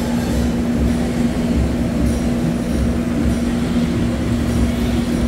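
Steady low mechanical hum and rumble with one constant tone, unchanging throughout.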